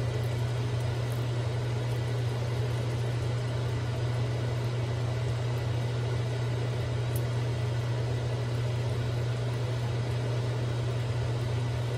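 Steady low hum with an even rushing noise from a running kitchen appliance, unchanging throughout.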